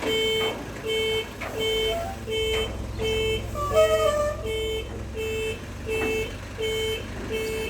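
Reversing alarm of a heavy vehicle beeping steadily, about eleven short beeps at roughly one and a half a second, over a diesel engine running.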